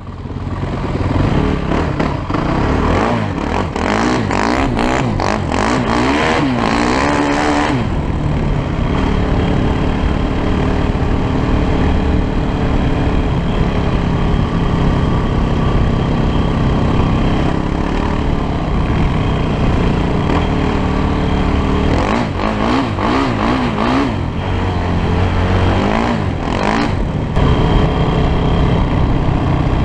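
Honda TRX450ER sport ATV's single-cylinder four-stroke engine running under way, heard from the rider's position. Its pitch rises and falls in quick repeated revs twice, about four seconds in and again around twenty-two seconds, with steady running between. Clattering knocks come along with the revving.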